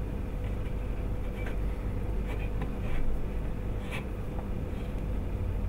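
Faint clicks and scrapes of a metal screwdriver working the locking caps on pedicle screws in a plastic spine model, the sharpest click about four seconds in, over a steady low room hum.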